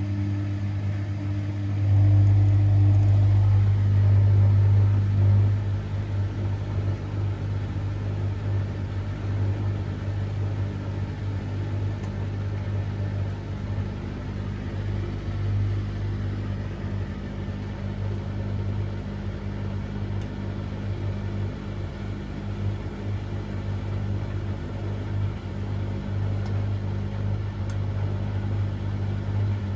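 Bosch WFCX 2460 OE washing machine running partway through its Cotton 60 °C cycle: a steady low hum that gets louder about two seconds in, stays up for a few seconds, then drops back and wavers.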